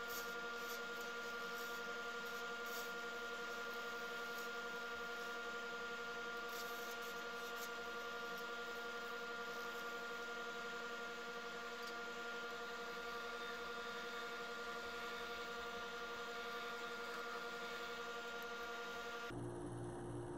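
Wood lathe running at a steady speed, a constant motor whine and hum, with faint scratching as a turning tool cuts the spinning resin-and-cactus blank. About a second before the end the sound switches abruptly to music.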